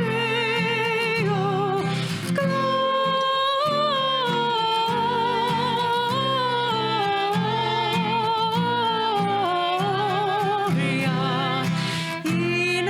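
Worship music: a solo voice singing long held notes with a wide vibrato over steady instrumental accompaniment.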